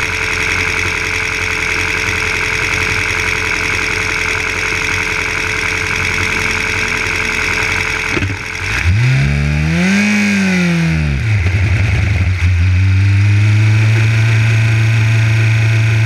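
Formula 3 car's four-cylinder racing engine heard from an onboard camera, running steadily at first, then revved up and down once about nine seconds in as the car pulls away. It then holds a louder, steady note at constant revs while rolling down the pit lane.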